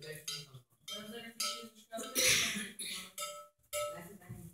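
Irregular metallic clinking and knocks, with a low voice mixed in.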